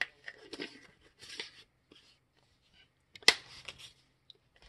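Spice containers and their packaging being handled on a kitchen counter: scattered rustles and soft clicks, with one sharper click a little past three seconds in.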